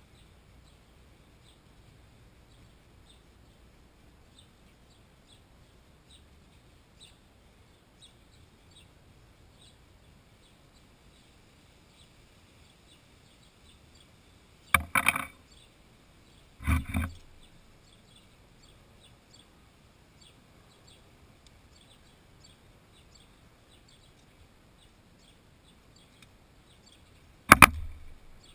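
Hand-tool work on a motorcycle's front brake. There are two short rattling clatters near the middle and a sharp metal clatter near the end, when a small metal part lands on the wooden deck. Faint bird chirping repeats steadily underneath.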